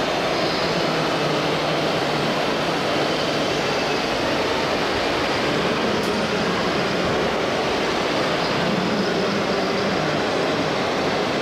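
RC model trucks and construction machines running steadily, a dense continuous mechanical drone.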